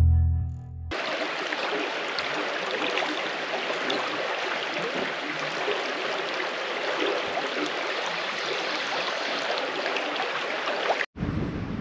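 Shallow woodland creek running over stones, a steady rippling rush of water. It cuts off abruptly near the end, giving way to a lower, rumbling outdoor noise.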